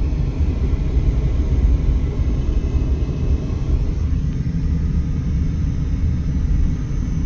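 Steady low rumble of a Mercedes-Benz car driving, its road and engine noise heard from inside the cabin.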